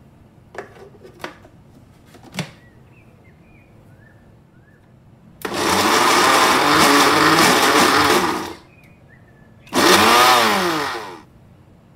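Countertop blender pulsed twice on chunks of mango, yogurt and ice. The first run lasts about three seconds and the second about a second and a half, the motor's pitch falling as it spins down. A few light clicks come before the first run.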